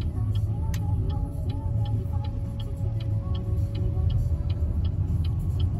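A car's turn-signal indicator clicking steadily, nearly three clicks a second, over the low rumble of the car cabin while driving.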